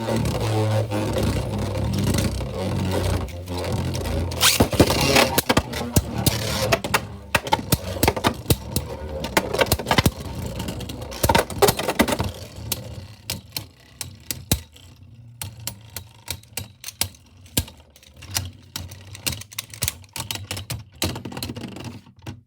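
Two 3D-printed Beyblade spinning tops spinning and clashing: a steady low whir under rapid clicking and scraping hits, thinning out about halfway through to scattered clicks.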